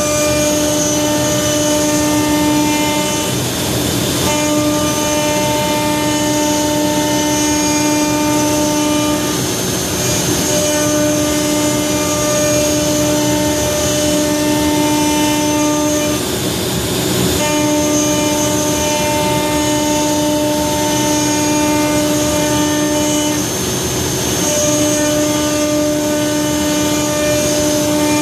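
CNC router spindle and end mill milling a solid hardwood block, a loud, steady high-pitched whine with cutting noise. About every six to seven seconds the whine breaks off briefly under a rougher, noisier cut.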